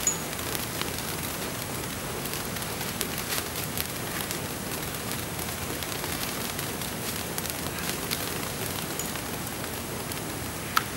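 Firework fountains hissing and crackling steadily as they spray sparks, with a sharp click near the end.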